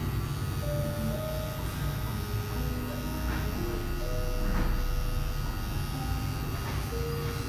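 Cordless hair clipper running steadily as it cuts a close fade on the side of the head, its blade lever pushed up for a closer cut. Background music plays over it.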